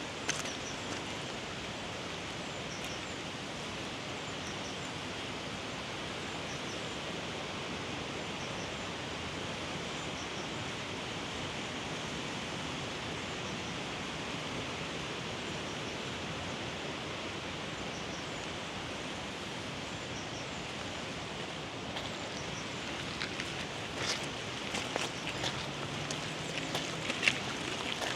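Steady rushing of a mountain river, an even hiss with no gusts. Scattered clicks and knocks join it in the last few seconds.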